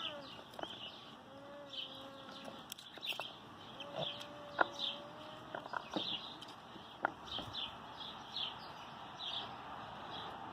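Small birds chirping over and over in short falling chirps, with two longer, steady calls from a bird, one about a second in and one about four seconds in, and a few sharp clicks scattered through.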